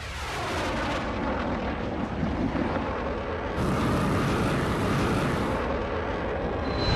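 Film sound effect of rocket-propelled missiles launching and climbing away: a steady rushing rocket-engine roar, growing a little louder and brighter about three and a half seconds in. A high whistle starts just before the end.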